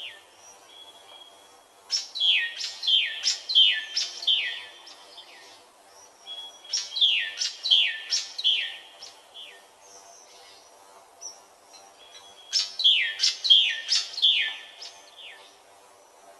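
A bird singing three phrases, each a quick run of four to six notes that each slide down in pitch, with short pauses between phrases.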